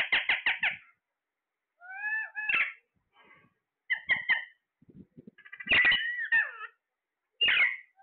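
Caged green parakeets calling: a quick run of about six harsh squawks, then scattered shorter squawks and calls that glide up and down in pitch, with silent gaps between.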